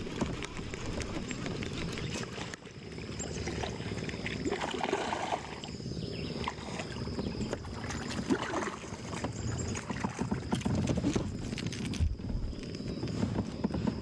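Water splashing and sloshing beside a kayak as a hooked bass thrashes at the surface and is landed by hand, with scattered clicks and knocks throughout.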